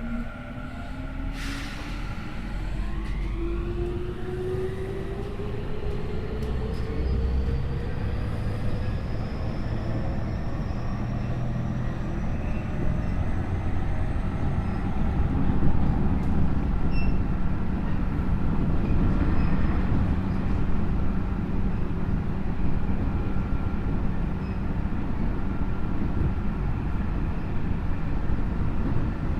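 Tokyu 5050 series electric train with a Hitachi IGBT VVVF inverter accelerating, heard from the car end: the traction motor and inverter whine rises steadily in pitch over the first dozen seconds over the rumble of wheels on rail, then the train runs on at speed with a steady rumble. A sharp click comes about a second and a half in.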